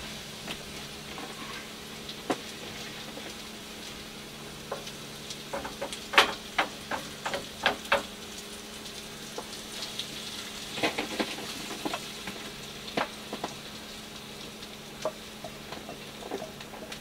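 Sausage, potatoes, carrot and green peppers sizzling in margarine in a frying pan, while a utensil stirs and scrapes them, clacking sharply against the pan several times. A steady low hum runs underneath.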